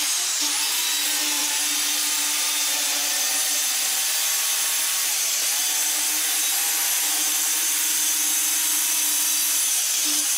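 Power saw cutting plywood: a steady, even cutting noise with a constant hum underneath, starting abruptly.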